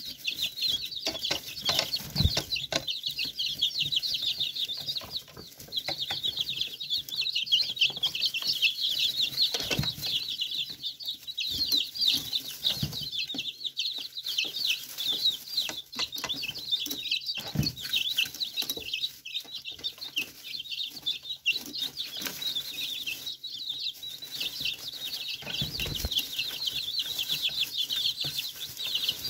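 A flock of young chicks peeping without pause, many high-pitched cheeps overlapping. Scattered light taps and a few dull thumps are mixed in.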